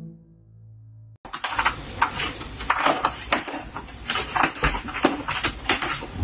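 A cat's claws catching and scratching in fabric curtains as it climbs them: dense, irregular clicks and rustling that start suddenly about a second in.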